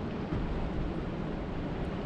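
Steady outdoor water ambience at a lake, an even rushing noise with a low rumble of wind buffeting the microphone.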